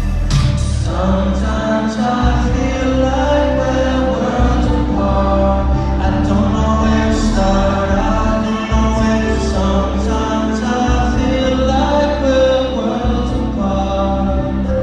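Live R&B song: a male singer's vocals into a handheld microphone over a backing track with a heavy, deep bass.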